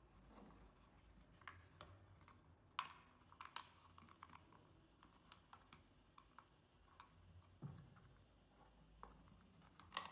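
Faint scattered clicks and taps of hands handling a camera junction box and its cable, fitting the parts together. The sharpest clicks come about three seconds in and again at the very end.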